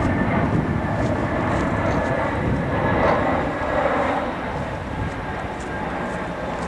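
Train running through a railway station: a steady, loud rumble with a few faint, even whining tones over it.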